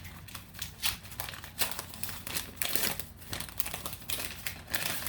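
Paper wrapping being crinkled and rustled by hand as a plant is unwrapped, an irregular run of crackles throughout.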